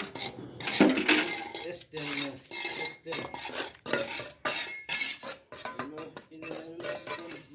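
Metal tools and iron pans clanking and scraping in wet concrete mix during slab casting. The knocks and scrapes come in a quick, irregular run of several a second.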